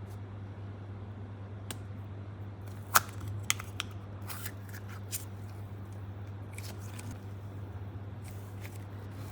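Scattered sharp clicks and taps, as of hands handling small objects, over a steady low electrical hum. The loudest click comes about three seconds in, with a few lighter ones after it.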